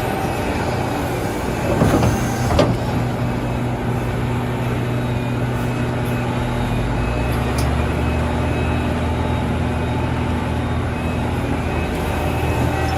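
Excavator engine running steadily, with two knocks a little after two seconds in.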